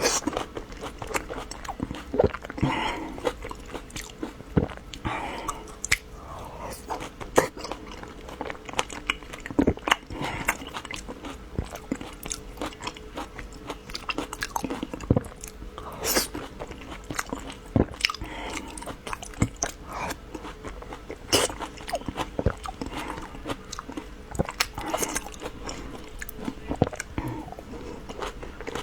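Close-miked eating: irregular wet chewing and smacking with frequent sharp biting clicks, mouthfuls of a soft sweet pastry with a runny centre.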